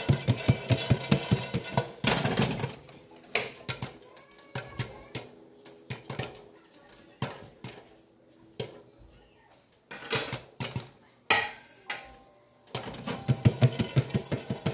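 Popcorn kernels popping dry, without oil, under the glass lid of a nonstick frying pan, in sharp, irregular single pops. At the start and again near the end the pan is shaken on the coil burner, giving a dense rattle of kernels, lid and pan.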